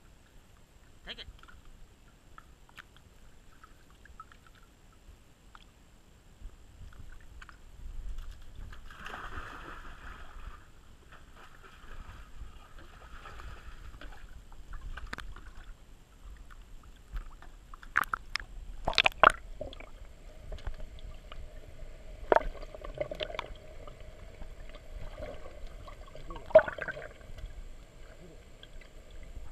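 Muffled pool water lapping and sloshing around a camera in a waterproof housing, with a few sharp knocks in the second half.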